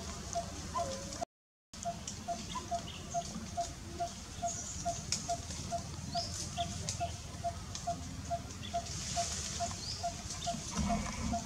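A bird repeating one short low note over and over, about three times a second, with faint high chirps from other birds or insects behind it. The sound cuts out completely for a moment about a second in.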